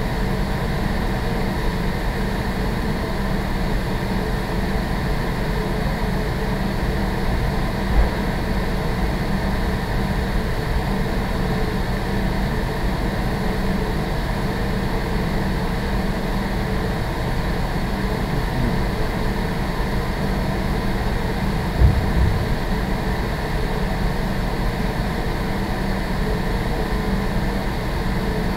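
Building ventilation running with a steady hum. Two brief low thumps, about 8 seconds in and again near 22 seconds.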